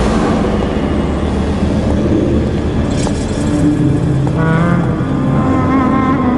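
Dramatic film score: a loud rumbling swell with a brief shimmer about three seconds in, then low sustained string notes entering about four seconds in.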